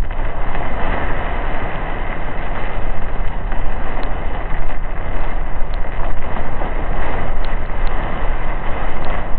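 Steady, loud rushing noise of a car driving on the road, with a few faint ticks.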